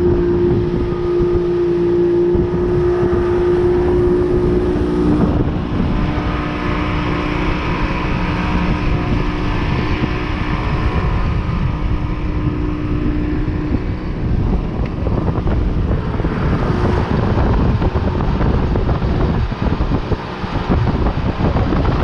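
Boat motor running at speed under way, with wind buffeting the microphone. A steady engine tone stands out for the first five seconds or so.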